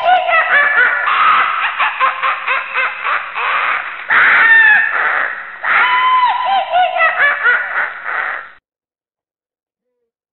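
Eerie high-pitched laughter sound effect: a cackle of quick 'ha' notes that rise and fall in pitch. It cuts off suddenly about eight and a half seconds in.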